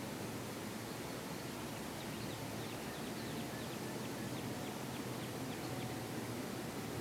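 A bird chirping a quick run of about ten short, falling high notes midway through, over a steady background hiss and low hum.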